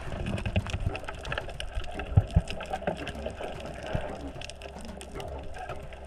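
Underwater reef sound picked up through a dive camera's housing: dense, irregular crackling clicks over a steady low rumble of water movement, with a couple of louder low knocks about two seconds in.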